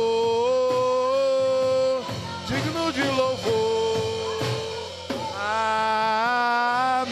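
Church worship song: a singer holds three long drawn-out notes, each about two seconds, over steady instrumental accompaniment.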